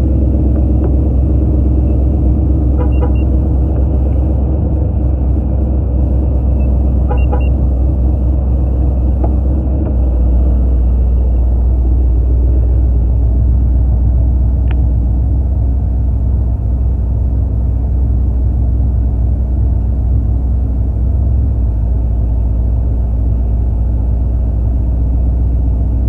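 Steady low rumble of a car engine idling, with two faint short chirps about 3 and 7 seconds in.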